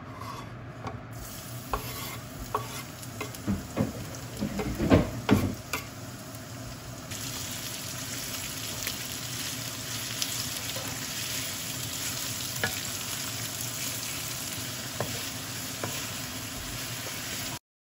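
Knife and cutting board click and knock as minced garlic is scraped into hot oil in a wok. Then ground meat sizzles steadily in the pan while a wooden spatula stirs it.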